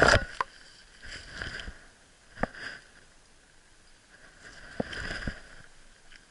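A cluster of sharp knocks and scuffs on the action camera as a springer spaniel's paw strikes it. Then scattered rustling and crunching of dry fallen leaves underfoot, with a single knock about two and a half seconds in and louder rustling near five seconds.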